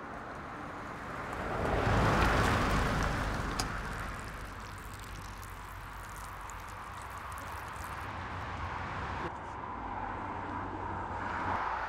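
A car approaching on a road: its tyre and engine noise swells to a peak about two seconds in and then fades. Steady low outdoor background noise follows.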